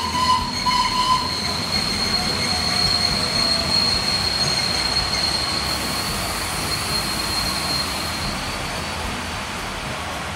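Vintage Centoporte passenger coaches rolling past as the train pulls out, wheels running on the rails with a steady, high-pitched wheel squeal that fades out about eight seconds in.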